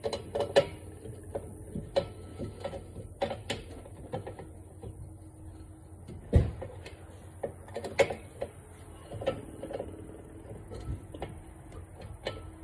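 Hand lug wrench clinking and knocking against an RV wheel's lug nuts as they are turned by hand: irregular sharp metal clinks, the heaviest knock about six seconds in.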